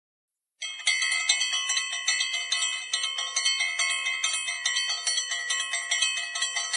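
Bright bell-like chiming that starts suddenly about half a second in and goes on with rapid strikes, several a second, from a subscribe-card sound effect.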